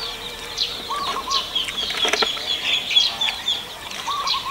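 Small birds chirping in short high notes, with a quick run of repeated notes in the middle, while a chicken clucks twice in short runs of three lower notes, about a second in and near the end. A single sharp click about two seconds in.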